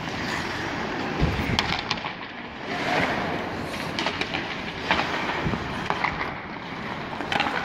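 Ice hockey skates scraping and carving across the ice, with sharp clacks of sticks on the puck and ice, and a dull thump about a second in.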